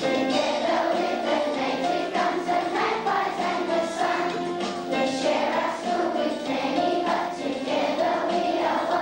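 Children singing together as a group, a school choir or assembly singing.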